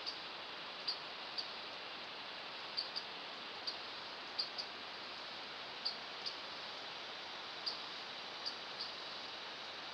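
Short, high-pitched animal chirps, often in pairs, every second or so, over a steady hiss.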